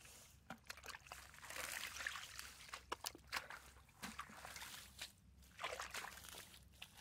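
Feet sloshing and stirring through shallow muddy water, with a longer stretch of splashing about a second in, another near the end, and scattered small clicks.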